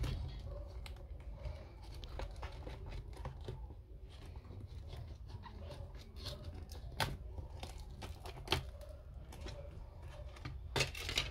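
Scattered small clicks and scraping from an Apple Time Capsule being taken apart by hand, with a few sharper clicks in the second half and a cluster near the end.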